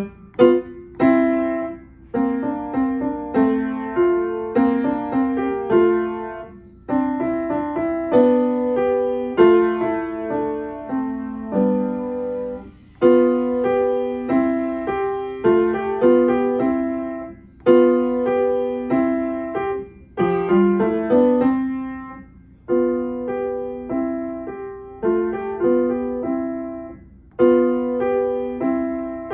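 Kawai upright piano being played: a short, simple piece in the middle of the keyboard, in phrases of about five seconds with a brief break between each.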